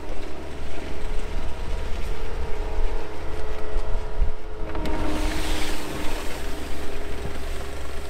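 Skid steer working snow with its brush attachment: a steady engine drone with a held whine over it, and a brighter rush of noise about five seconds in.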